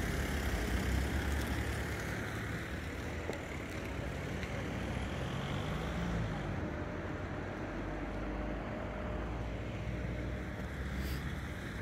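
Car traffic passing on a city street, at a fairly even level.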